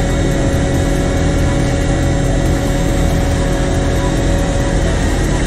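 Cat AP655F asphalt paver's diesel engine running steadily at close range, with a constant even drone.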